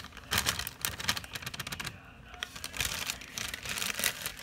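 Thin plastic bag crinkling and crackling as dry brownie mix is shaken out of it into a plastic container, a rapid run of small crackly clicks with a short lull about halfway through.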